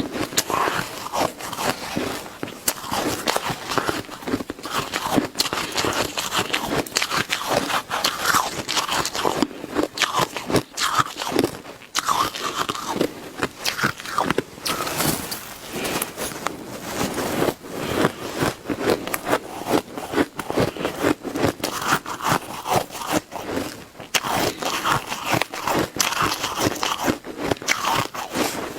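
Close-up crunching and biting of shaved ice, fast big bites with continuous crackly scraping and chewing.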